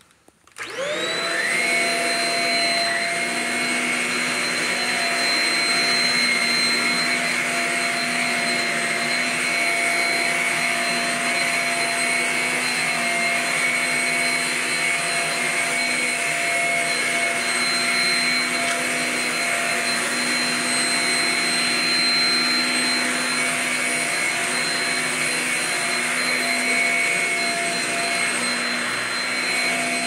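Corded Shark Rocket stick vacuum starting up about half a second in, its motor whining quickly up to speed, then running steadily with a high whine as it is pushed over carpet.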